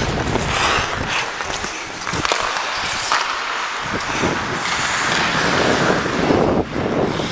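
Ice skate blades scraping and carving on rink ice, with wind rushing over the moving microphone. A few sharp clicks are heard.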